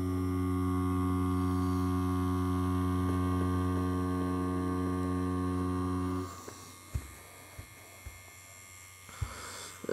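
Tattoo machine running with a steady electric hum as a line is pulled on practice skin. The hum cuts off about six seconds in, followed by a few soft knocks and rustling as the skin is wiped with a paper towel.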